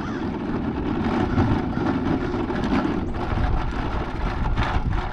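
Steady running noise of a small vehicle ridden along a paved street: a low motor and tyre rumble mixed with wind on the microphone.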